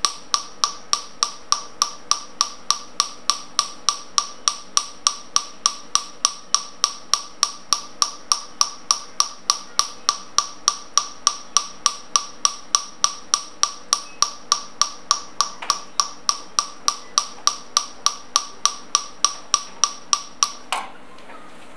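Picosecond Nd:YAG laser handpiece firing steadily at about four pulses a second, each pulse a sharp snap as it blasts the carbon powder on the skin in a carbon laser peel. The pulses stop suddenly near the end.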